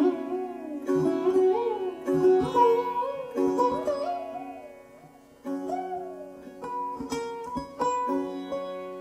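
Sitar being played: plucked melody notes that bend up and down in pitch over ringing drone and sympathetic strings. The playing thins to a fading note about five seconds in, then fresh strokes start again.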